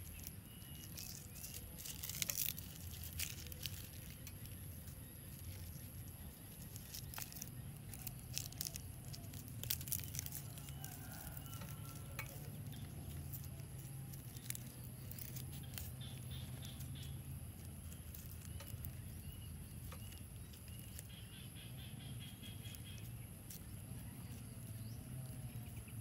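Hands tearing and handling green leafy stalks, giving scattered rustles and sharp snaps over a steady low rumble, with faint bird chirps now and then.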